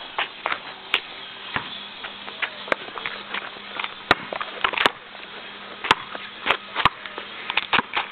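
Sharp, irregular taps and thuds of a street basketball game: the ball and shoes hitting the asphalt, over a faint steady hum.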